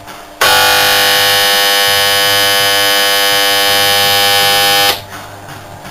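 Copeland scroll compressor's three-phase motor, energized through single-phase start and run gear, giving a loud, steady electric buzz for about four and a half seconds before it cuts off suddenly. The motor hums without starting: its rotor is held by an upper motor bearing that has spun and welded to the shaft.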